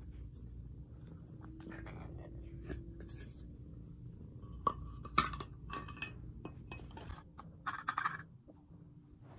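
Wet cat food being scooped from a tin can into a metal bowl, with scattered light metal-on-metal clinks, and a cat eating from the bowl. A quick cluster of clinks comes about eight seconds in.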